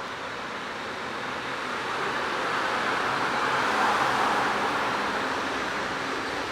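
A passing vehicle's rushing noise, swelling to a peak about four seconds in and then easing off.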